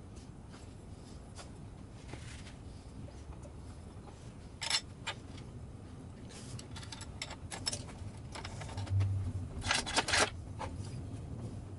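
Metal hardware being handled and fitted: scattered small clinks and clicks of washers, a bolt and a wrench on the bandsaw's steel vise-jaw table, over a low steady hum. The clicks come in a few short clusters, the loudest near the end.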